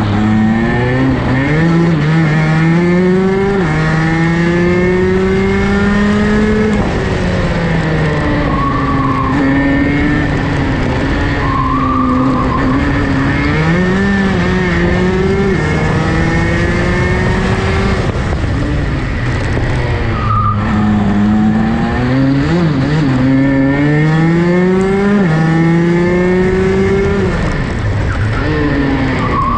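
Rotax DD2 kart's 125cc two-stroke engine heard onboard while racing. Its pitch climbs steadily under acceleration and drops sharply off the throttle into corners, about eight times.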